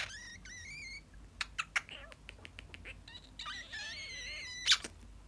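Cockatiel whistling a warbling phrase, then making a quick run of kissing smacks and clicks, then whistling again and ending with a loud smack.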